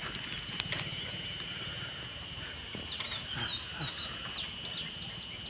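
Small birds calling in repeated short, falling chirps over a steady, high-pitched insect drone.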